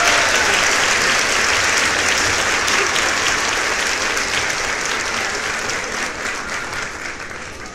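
Applause, many hands clapping in a dense patter that fades steadily toward the end.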